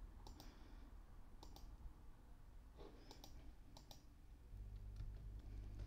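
Faint computer mouse clicks, a few single and some in quick pairs, over quiet room tone; a steady low hum comes in about four and a half seconds in.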